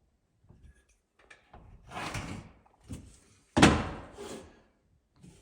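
Rustling and scraping, then a single loud thump a little past halfway, followed by a smaller knock.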